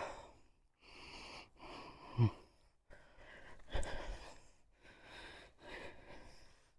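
A person breathing hard, about five loud breaths in and out, one ending in a short falling voiced sigh a little past two seconds in. A low thump near four seconds in.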